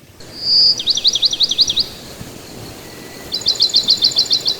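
A bird singing: a short whistle, then a quick run of falling notes, and near the end a second, faster run of short repeated notes.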